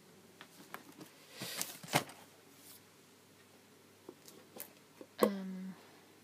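Gift boxes and packaging being handled: scattered light clicks and taps and a brief rustle, then a sharper knock about five seconds in, followed by a short low tone.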